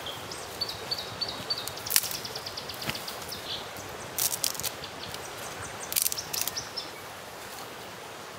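Dry twigs and sticks snapping and rustling as they are broken and laid on a small campfire, with the kindling crackling; sharp snaps stand out about two seconds in, around four seconds, and in a cluster around six seconds.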